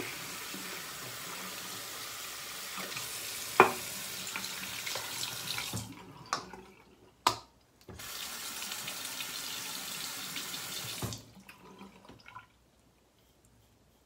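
Bathroom sink tap running steadily into the basin. It is shut off about six seconds in, there is a sharp knock, and it runs again for about three seconds before being turned off.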